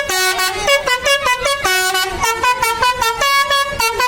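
Bus's multi-tone 'telolet' musical air horn playing a rapid melody, a quick run of short notes stepping up and down in pitch several times a second.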